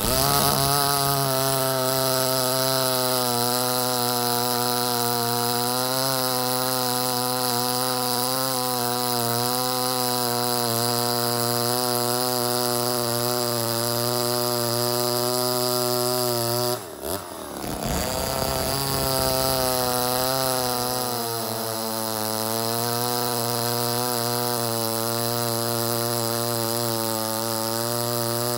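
Ported Poulan 245a two-stroke chainsaw running at high revs with a steady, slightly wavering pitch. About seventeen seconds in, the note briefly drops out and sweeps down and back up. It then settles at a slightly lower pitch.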